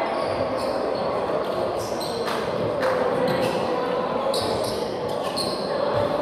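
Volleyball play in a gymnasium: sneakers squeaking in short chirps on the hardwood floor and a couple of sharp ball smacks over a steady hum. The hall is echoey, with faint voices murmuring.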